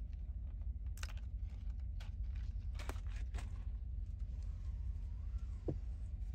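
A few light, sharp clicks and taps of small hard parts being handled, over a steady low hum.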